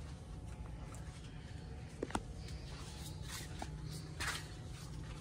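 Steady low background hum with one sharp click about two seconds in and a brief rustle a couple of seconds later, the kind of handling noise made while browsing tools on a rack.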